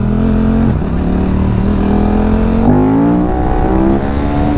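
Sport motorcycle engine under way, revs climbing under acceleration. The pitch dips briefly at a gear change under a second in, climbs again, steps up about halfway through and keeps rising, over low wind rush.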